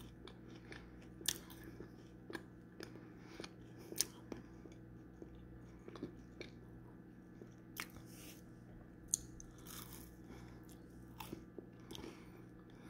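A person chewing a Little Debbie Star Crunch with the mouth closed, giving soft, faint crunches at uneven intervals, about one a second.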